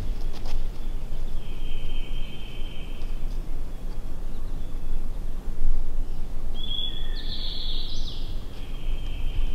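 A songbird singing twice, each song about two seconds of high, held buzzy notes that step down in pitch, over a steady low outdoor rumble.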